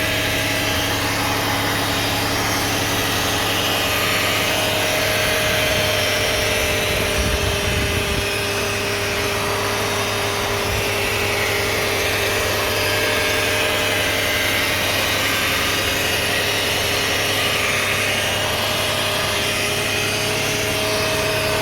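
2009 Toyota Sienna's 3.5-litre V6 running at a steady speed, with a steady whine from the transmission area that the owner cannot identify. A brief low rumble comes about seven seconds in.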